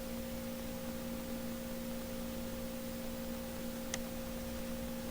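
A steady background hum made of two fixed tones, one low and one a little over twice as high, with a faint click about four seconds in.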